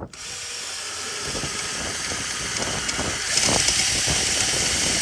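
Power drill running under load, boring out a pre-drilled pilot hole with a larger bit. It starts suddenly and gets louder about three seconds in as the bit cuts harder.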